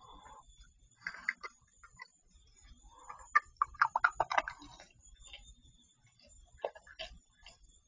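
Scattered small clicks, taps and crunches from a raccoon and a skunk eating and moving about at metal food bowls on a gravel patio, thickest about three to four and a half seconds in.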